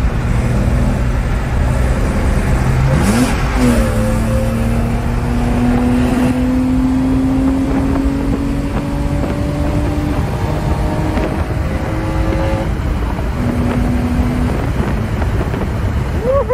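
BMW E34's engine under acceleration, heard from inside the cabin over steady road noise: its pitch jumps up about three seconds in, then climbs slowly for several seconds before easing off around ten seconds in.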